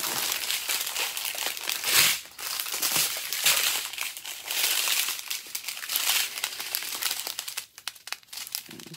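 Strips of small plastic bags of diamond-painting drills crinkling as they are handled and laid out, in repeated bursts, the loudest about two seconds in, growing quieter near the end.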